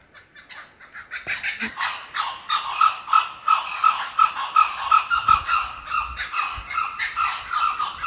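Kookaburra laughing call: a fast series of repeated hooting notes, about three a second, that builds up about a second in and carries on loudly.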